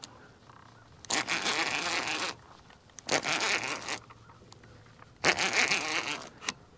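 Fishing reel being cranked in three quick spurts of about a second each, a fast rattling whir, while a hooked catfish is reeled in on a bent rod.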